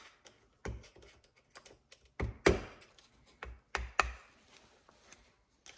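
A thin steel pick clicking and scraping against a small retaining clip inside the top of a Honda XR500 rear shock body, working the clip out of its groove. Irregular sharp metal clicks, the loudest about two and a half and four seconds in.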